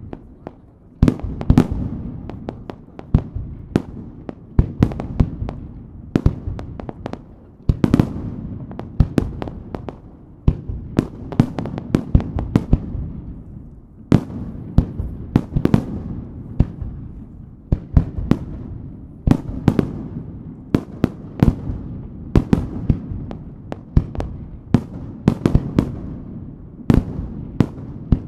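Aerial firework shells bursting in a continuous barrage: sharp bangs following one another every second or less, each trailed by a low rumble.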